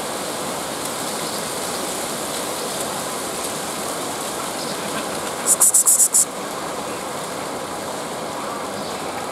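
Steady outdoor background hiss. About five and a half seconds in comes a brief run of about six rapid high-pitched chirps.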